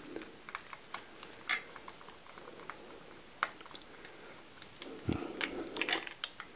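Sparse light clicks and taps as a screwdriver and fingers work small screws on a telescope mount's plastic base cover, with a soft handling rustle near the end.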